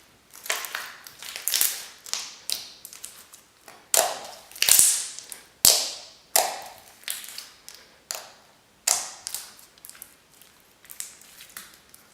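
Slime being squished, stretched and poked by hand, giving a quick irregular run of sharp pops and crackles as air pockets burst.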